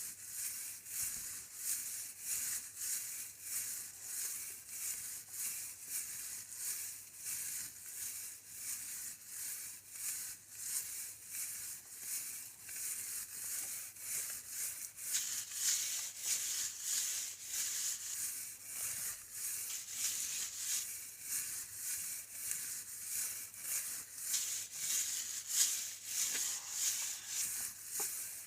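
A steady, rhythmic dry rattling, about two to three strokes a second, a little louder in the second half.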